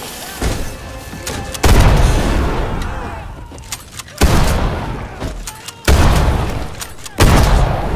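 Four heavy blasts of film battle sound, each sudden and dying away slowly over a second or more, with a smaller hit near the start, over the film's score.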